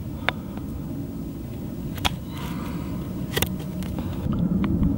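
Brisa Hiking 75 knife blade shaving bark off a wooden stick: a few sharp clicks and a short scraping stroke as the blade bites and slides, over a low steady rumble.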